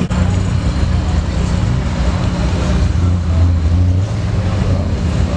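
Honda S2000's four-cylinder engine idling: a steady low rumble that swells briefly about three seconds in.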